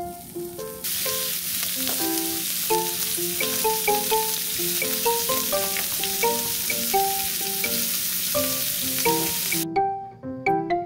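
Pork belly pieces sizzling in a frying pan, a steady hiss with small spattering pops, starting about a second in and cutting off suddenly near the end. Piano-like background music plays throughout.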